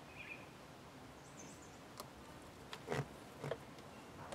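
Faint handling sounds of hands working electrical wire and a crimp connector, with a few light clicks and knocks, the strongest two about three seconds in, as a hand-held wire tool is handled.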